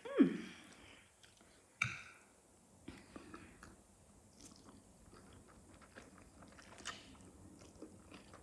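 Close-up mouth sounds of someone eating black bean sauce noodles: slurping noodles in and chewing, with small wet clicks throughout. A brief falling-pitched vocal sound at the very start and a sharp mouth sound about two seconds in are the loudest moments.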